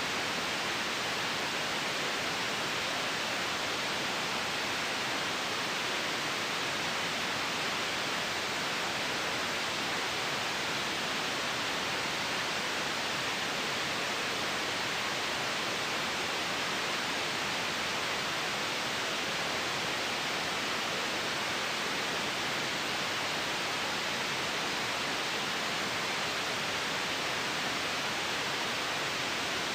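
Steady white noise: an even, unbroken hiss that never changes in level or character.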